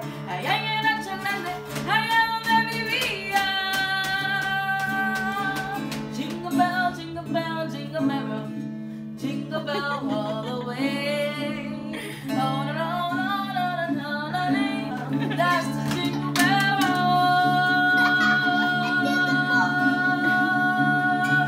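A woman singing while strumming a pink acoustic guitar. The voice slides and bends freely, then holds one long note for the last few seconds.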